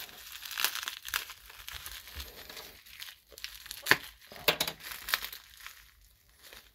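Bubble wrap crinkling and rustling as gloved hands unwrap it, in irregular crackles with one sharp crackle about four seconds in, tailing off near the end.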